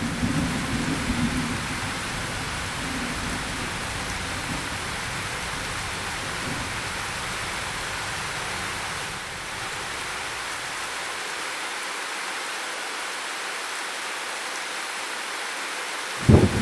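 Steady rain falling, with a low thunder rumble dying away in the first couple of seconds. A loud thunderclap breaks in suddenly near the end.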